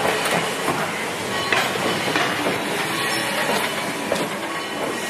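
Wooden passenger coaches of a steam excursion train rolling past close by: a steady rumble of steel wheels on the rail, with a clack every second or so as the wheels cross rail joints.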